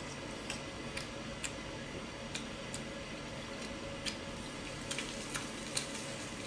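Beef short ribs crackling on a tabletop charcoal grill: irregular sharp pops, one or two a second, over a steady hiss.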